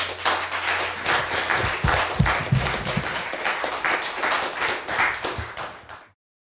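Audience applauding, many hands clapping, cut off suddenly near the end.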